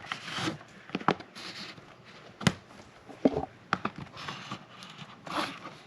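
Plastic shrink wrap being peeled off a cardboard box, crinkling and crackling in irregular sharp clicks and short rustles.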